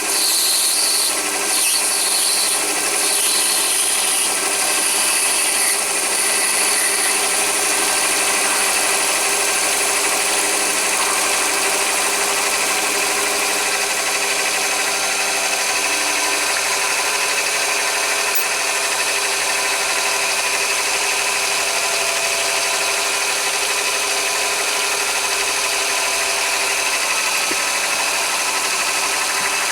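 Chinese mini lathe running steadily while an HSS parting blade cuts into a brass bar, giving a continuous scraping hiss over the steady whine of the motor and headstock gears. The high hiss is stronger for the first several seconds, then eases.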